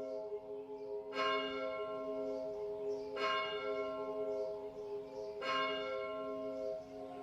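Bell tones struck three times about two seconds apart, each ringing on over a sustained low tone, as the opening of a pop track.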